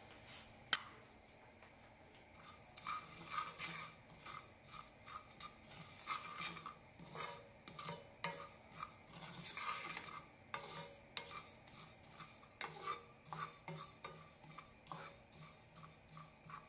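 Wooden spoon stirring cumin and coriander seeds as they dry-roast in a nonstick frying pan: quick, rhythmic scraping strokes of spoon and seeds against the pan, several a second, starting about three seconds in. There is a single sharp tick just under a second in.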